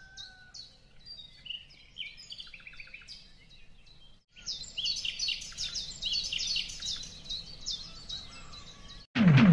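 Small birds chirping and twittering, a stock birdsong ambience: quieter at first, then after a brief break louder and denser. Loud music starts abruptly right at the end.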